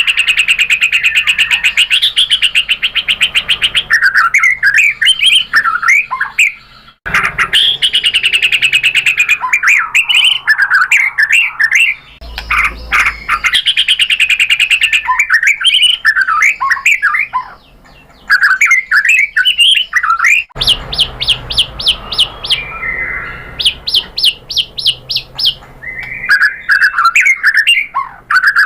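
White-rumped shama (murai batu) singing a long, varied song of rapid rattling trills and quick whistled phrases. The song breaks off abruptly and restarts a few times.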